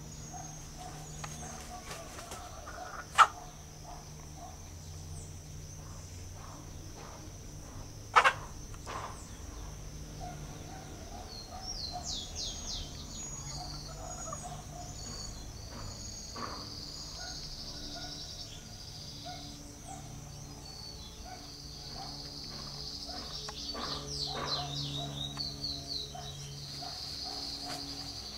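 Small birds chirping in runs of quick notes over a steady high insect drone, with two sharp clicks about three and eight seconds in.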